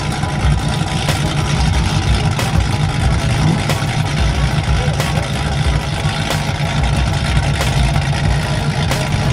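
Classic Chevrolet Chevelle's engine running with a low, steady rumble as the car pulls away at low speed.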